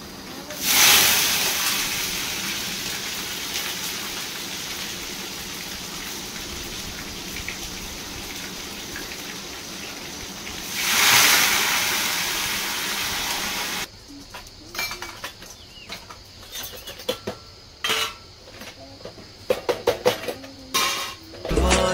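Hot oil sizzling in a pan on a gas stove: a sudden burst of sizzling about a second in that slowly eases off, and a second loud burst around eleven seconds as raw chicken pieces are dropped into the hot pan. After that, scattered clinks and knocks of steel dishes and pots being washed, with music starting right at the end.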